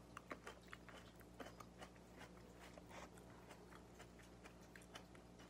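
Faint chewing of fresh fruit pieces from a fruit cup, with many short, irregular wet clicks and smacks of the mouth.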